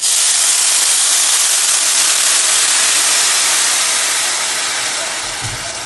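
Hot spiced water poured onto ghee-roasted vermicelli in a hot pan, hissing loudly with steam as it hits the pan. The hiss starts suddenly and eases a little near the end.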